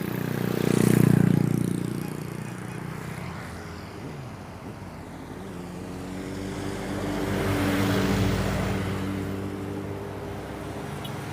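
Road traffic: two motor vehicles pass close by, the first loudest about a second in, the second with a steady engine tone that swells to its loudest around eight seconds in.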